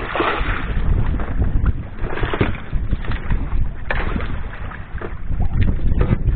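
Wind buffeting the microphone, with sea water sloshing and slapping against a small outrigger boat, coming in several brief surges.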